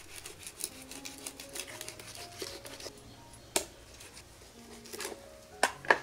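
Large knife cutting a fish head apart on a wooden chopping board: a run of small clicks and scrapes as the blade works through the head, with a sharp knock of the blade on the board about three and a half seconds in and two more close together near the end. Soft background music.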